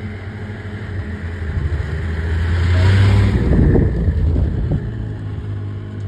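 Snowmobile driving past through deep snow, its engine growing louder to a peak about three seconds in, then fading as it moves away.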